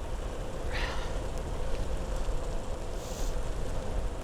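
Wind buffeting the microphone over the rumble of bicycle tyres on a wet road strewn with loose chippings, with a couple of short hisses about one and three seconds in.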